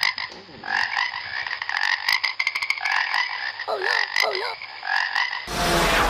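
Frogs croaking: a run of short repeated calls with clicking trills. A loud rushing noise cuts in about five and a half seconds in.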